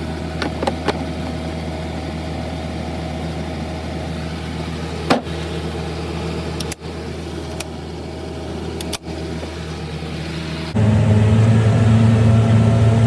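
A loader's engine running steadily, with a few brief knocks. About eleven seconds in the throttle opens and the engine steps up suddenly to a louder, harder run.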